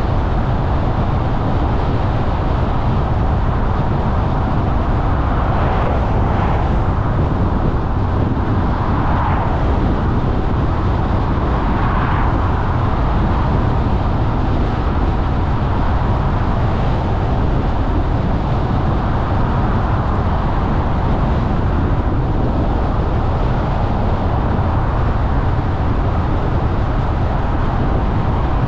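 Car driving along a road: steady tyre and engine noise with a deep rumble, and a few brief swells in the first half.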